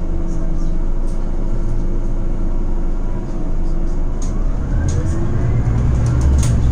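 Scania Citywide compressed-natural-gas city bus heard from inside the passenger cabin: the engine hums steadily, then about four seconds in it pulls away, with a rising whine and a louder, deeper rumble as it accelerates. A few sharp rattles from the cabin near the end.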